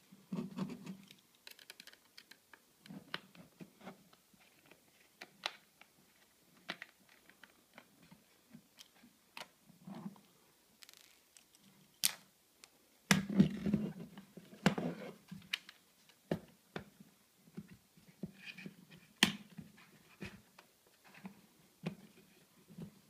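Hands working the metal case of an Elsys Satmax HD satellite receiver open: scattered small clicks, scrapes and knocks of sheet-metal cover and chassis, like typing, with a louder bout of handling about halfway through as the cover is pried loose and the warranty seal breaks.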